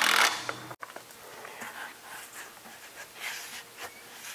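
Cordless impact wrench running a lug nut onto a truck wheel, stopping a fraction of a second in. After that come faint rustling and light knocks as the wheel is handled.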